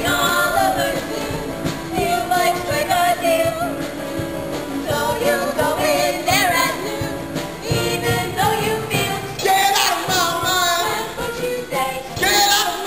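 Song from a stage musical: singing with vibrato over a live band accompaniment.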